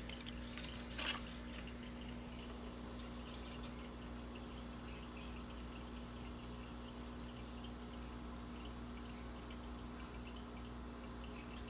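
Repeated short, high-pitched chirps, roughly two a second, start about two and a half seconds in and stop near the end, over a steady low hum. A single knock comes about a second in.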